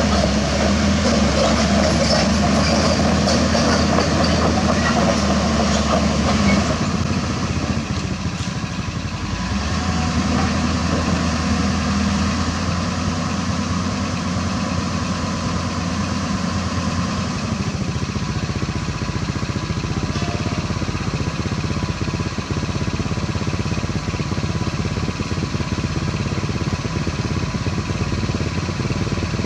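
Heavy diesel engine idling steadily, its low hum easing off about seven seconds in and again a little before the end.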